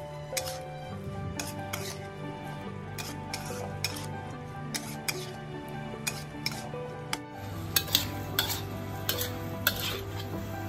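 A metal spatula scraping and clinking against a wok while stir-frying pumpkin and basil, with sharper, louder clinks in the second half.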